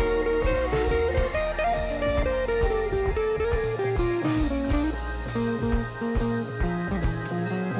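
Background music: a blues-style electric guitar melody over a steady bass line and drum kit.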